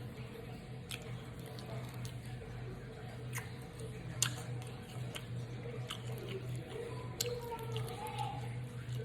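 Close-miked chewing and biting of food, with scattered wet mouth clicks and smacks. A steady low hum runs underneath.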